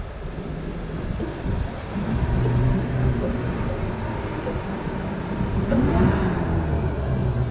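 An engine running steadily, with a brief rise and fall in pitch about six seconds in.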